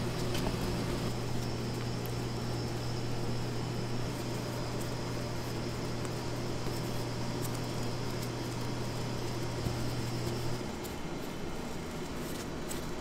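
Steady machine hum with a faint high whine that cuts off about ten and a half seconds in, with light clicks and clatter over it.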